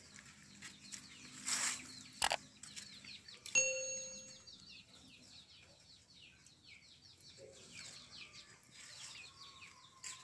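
Birds chirping continuously, many short high chirps, with a single bell-like ding about three and a half seconds in.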